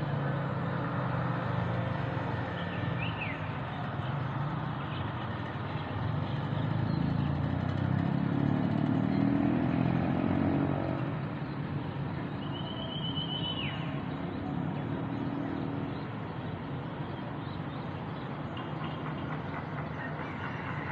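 Distant road traffic hum, swelling as a vehicle passes about a third of the way in and fading again. A bird gives two short high calls, a few seconds in and again past halfway.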